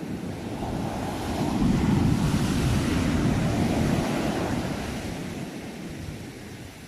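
Sea waves: a single wave swells up, breaks and washes out, loudest about two to four seconds in and then fading away.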